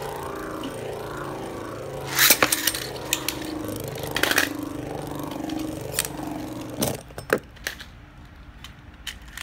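A Beyblade spinning top whirring on a plastic stadium floor: a steady drone that wavers in pitch, broken by a few sharp clicks of the top knocking against the stadium. About seven seconds in the drone stops, with a couple of light clatters as the top comes to rest.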